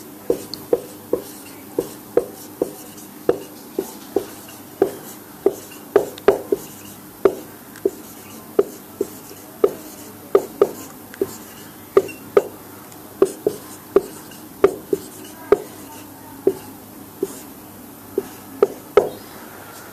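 Marker pen writing on a whiteboard: a string of light, irregular taps, about two a second, as the tip strikes the board with each stroke.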